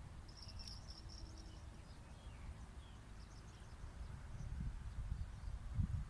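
An insect chirping in a short pulsed trill during the first two seconds, with a few faint bird-like chirps, over low rumbling outdoor noise that grows louder towards the end.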